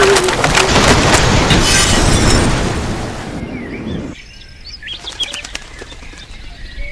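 A loud rush of water, like a flood surging, fading away over about a second after three seconds in. After that, birds chirping.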